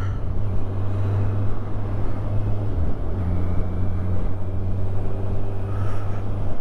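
Kawasaki Ninja 1000 SX's inline-four engine running at a steady road pace, heard from the rider's helmet over wind and road noise. Its low note drops away briefly about three seconds in, then carries on.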